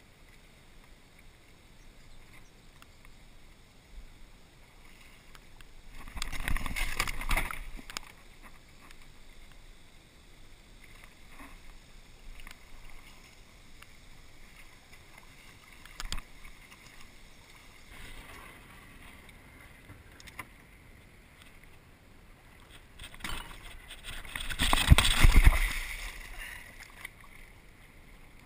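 Canoe drifting and paddled through a shallow river riffle: water rushing and lapping against the hull. Two louder surges of noise of about two seconds each come roughly a quarter of the way in and again near the end, with a single brief knock between them.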